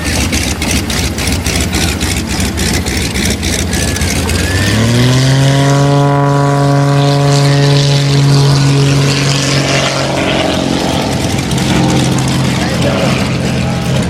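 Propeller airplane engine throttling up: about four and a half seconds in its note rises, then holds a steady drone and fades after about ten seconds, over a constant wash of noise.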